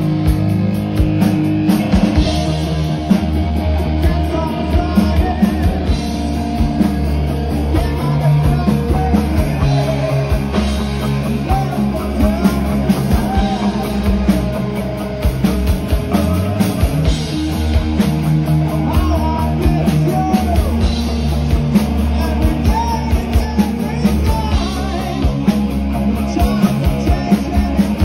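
Rock band playing live: electric guitars, electric bass and a drum kit over a steady, driving beat.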